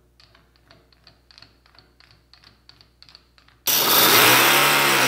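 Faint, quick clicking as a keyless drill chuck is turned by hand onto its threaded adapter. About two-thirds of the way in this cuts suddenly to a loud Toyan FS-V800 nitro-fuelled V8 model engine running, its pitch dipping briefly and then holding steady.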